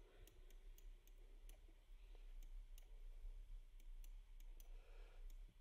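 Faint, irregular clicking of a computer mouse, roughly two or three clicks a second, over near-silent room tone.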